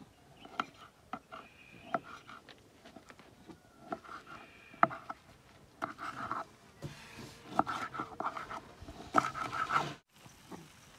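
Knife chopping tomatoes on a wooden cutting board: irregular sharp knocks of the blade on the board, with short pitched calls in the background between the strokes. The chopping stops near the end.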